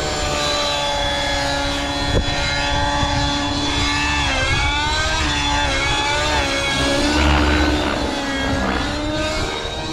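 RC nitro helicopter's O.S. 55 HZ-R two-stroke glow engine, running through a tuned Hatori pipe and driving its rotors, at a governor-held head speed. The pitch holds steady for about four seconds, then bends up and down as the helicopter manoeuvres and climbs.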